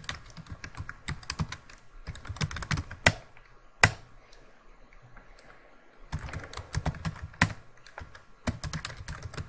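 Typing on a computer keyboard: quick runs of key clicks with a few louder single key strikes, a pause of about two seconds in the middle, then more typing.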